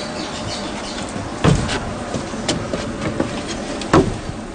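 Knocks and thuds of bags and belongings being set down and handled on a wooden bed platform. Two heavier thuds, about a second and a half in and near the end, with lighter clicks between them, over a steady background hiss.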